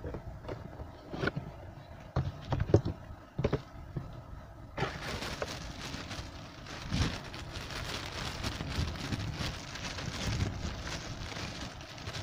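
Hard plastic knocks and clicks as a mini sewing machine and its cardboard box are handled, then, about five seconds in, plastic bubble wrap crinkling and rustling steadily as it is worked around the machine.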